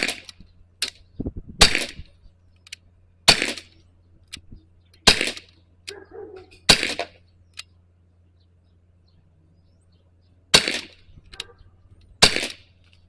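CO2-powered Glock BB pistol fired seven times: sharp pops about every one and a half to two seconds, with a pause of about four seconds after the fifth shot. A fainter click follows about a second after most shots.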